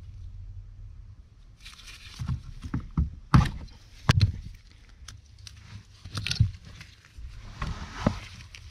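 Hand-tool and wiring handling: a wire stripper/cutter clicking and snipping on harness wires amid rustling, with the loudest sharp clicks about three and four seconds in and another near the end.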